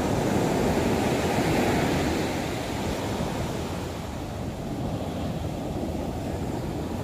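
Heavy sea surf breaking and washing up a sandy beach, swelling in the first two seconds or so and then easing, with wind rumbling on the microphone.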